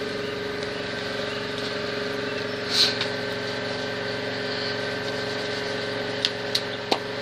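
A steady machine hum, a motor running at an even pitch, with a short hiss about three seconds in and a few light clicks near the end.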